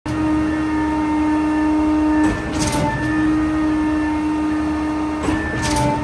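Heavy concrete-truck machinery running with a steady hum. Twice, about two and five seconds in, the hum breaks off for a short hiss and then picks up again.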